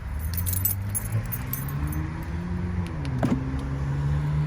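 Ram 1500 pickup's engine running, its speed rising and then settling back to a steady idle, with keys jingling.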